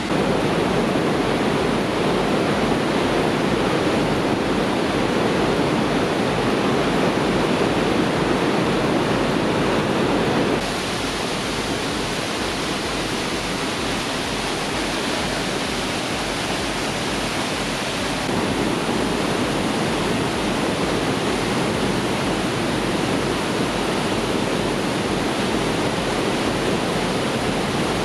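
Steady rush of the Rhine Falls, a large river waterfall, heard close up: an even wash of noise that drops a little about ten seconds in and comes back up around eighteen seconds.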